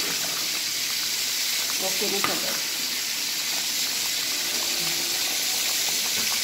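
Chicken curry cooking in a pot, a steady sizzling hiss with a few faint ticks.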